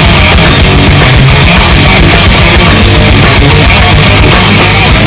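Loud hard-rock goal song with distorted electric guitar and drum kit, played as the hockey team's goal celebration music.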